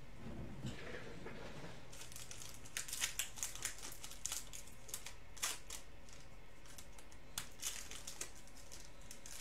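Foil wrapper of a trading-card pack being torn open and crinkled by hand, in irregular crackling bursts that start about two seconds in.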